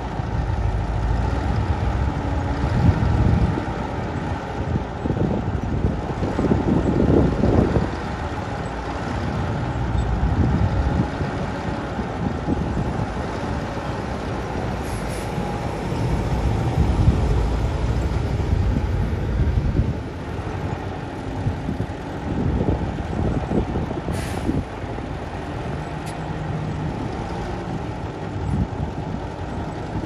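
Heavy dump truck's diesel engine running, its rumble rising and falling as it works, with a short sharp noise about three quarters of the way through.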